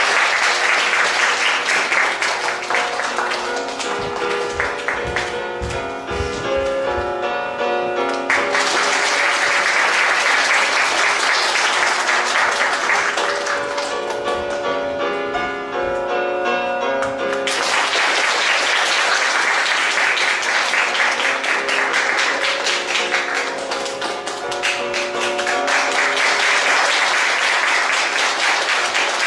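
Music plays throughout while an audience applauds over it. The applause comes in several waves that start abruptly.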